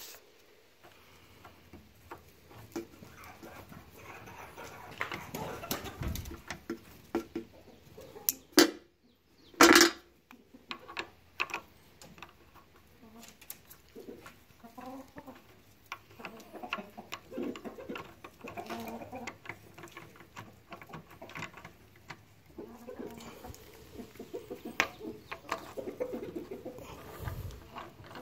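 Metal drill press feed handles being threaded by hand into the feed hub, with light clicks, clinks and handling noise, and two short loud sounds about eight and a half and ten seconds in.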